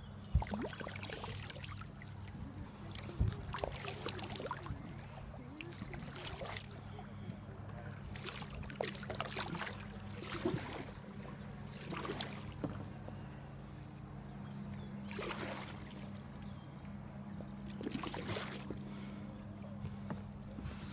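Kayak paddle strokes, the blade splashing through the river water every couple of seconds. A steady low hum runs underneath.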